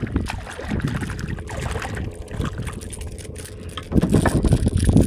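A hooked fish, a small spotted seatrout, splashing and thrashing at the water's surface beside a kayak as it is brought in. Louder, heavy low bumps take over near the end.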